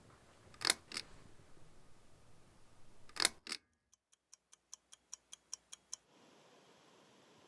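Two pairs of sharp clicks, then a quick, even run of about a dozen light ticks, roughly five a second, over dead silence, which stops about six seconds in.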